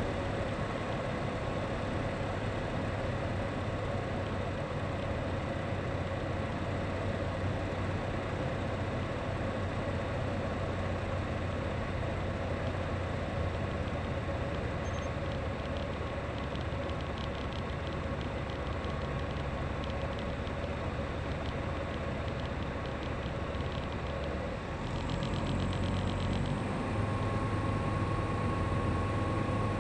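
Single-engine light aircraft's engine and propeller droning steadily, heard from inside the cockpit with wind noise. Near the end the engine note dips briefly and then settles a little higher: a throttle change.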